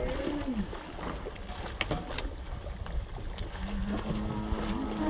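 Water splashing as mullet struggle in a cast net being hauled up to the side of the boat, over wind rumbling on the microphone, with a few sharp slaps about two seconds in. Drawn-out vocal exclamations come just after the start and again near the end.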